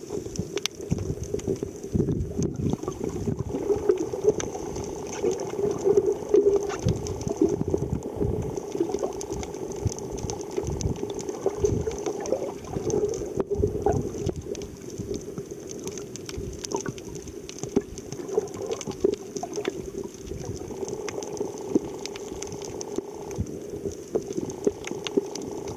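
Muffled underwater sound picked up by a submerged camera: bubbling and water rushing against the housing, over a steady hum, with scattered small clicks.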